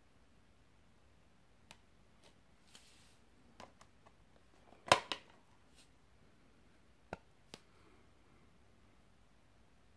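Plastic clicks and taps of Blu-ray discs being pressed onto and pulled off the centre hub of a clear multi-disc plastic case. The loudest is a sharp double snap about five seconds in, with a few lighter clicks before it and two more a couple of seconds later.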